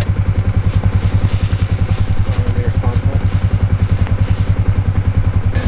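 Vehicle engine idling steadily with an even, fast low throb.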